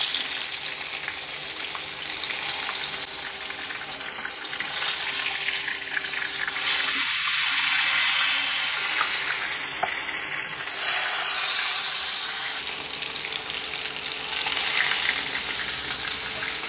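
Hot oil sizzling steadily around masala-coated king fish steaks shallow-frying in a pan, growing a little louder midway as the pieces are turned over onto their second side. A few light taps of the spatula can be heard.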